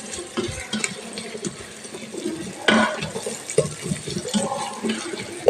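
A spatula stirring and scraping chopped onions and green chillies frying in oil in a rice cooker pot, with irregular scrapes and clicks over a sizzle and a louder scrape about two and a half seconds in.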